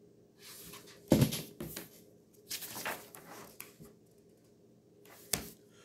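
A hardcover picture book being handled: its pages rustle, and the book bumps several times. The loudest thump comes about a second in, and a sharper knock comes near the end.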